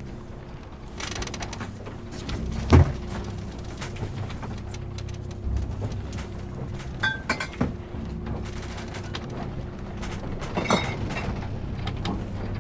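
Knocks and clatter of a man moving about a sailboat's cabin and galley, with a heavy thump about three seconds in and further knocks around seven and eleven seconds in, over a low steady hum.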